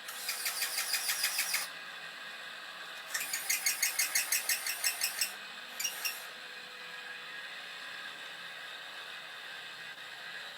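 Electronic sound effect from a Bruder toy light and sound module, played through its small speaker: a rapid pulsing, about seven pulses a second, in three bursts, the longest a little over two seconds and the last very short. A steady hiss runs underneath.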